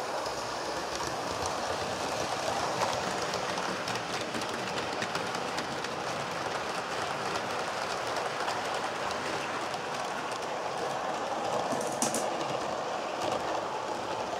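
Model train running along the track: a steady rolling noise with fine clicks of the wheels over the rail joints, and one sharper click about twelve seconds in.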